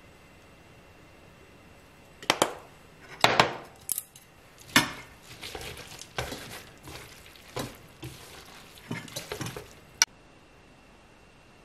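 Cooking chopsticks and a wooden spatula stirring and tossing glass noodles and vegetables in a frying pan. It is a string of knocks and scrapes against the pan that starts about two seconds in, is loudest in the first few strokes, and ends with a sharp tap.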